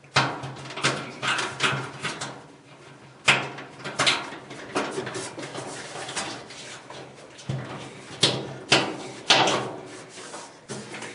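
Wires being unhooked from plastic holders on an LG dryer's heating element: a quick run of clicks, snaps and rattles of wire, plastic and sheet metal, over a faint steady hum.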